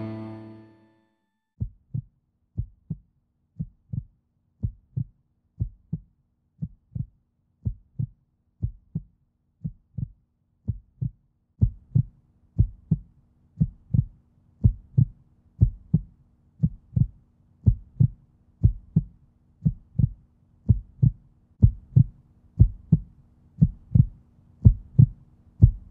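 A low, muffled drum thump repeated evenly about twice a second, like a soundtrack pulse, growing louder about halfway through as a faint low hum joins it.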